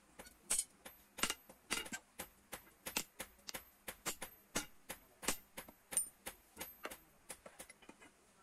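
Hand hammer striking red-hot iron on an anvil in a quick, steady rhythm of about three or four blows a second, each a sharp metallic clink, some much louder than others, as the hot iron is forged into a mason's rod-bending tool.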